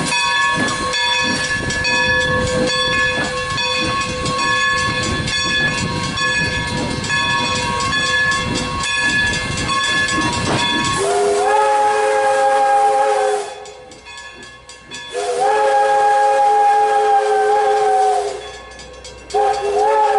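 Steam locomotive: a steady high-pitched tone over a rhythmic pulsing for about eleven seconds, then the whistle blows two long blasts with a short gap between, and a third blast begins near the end.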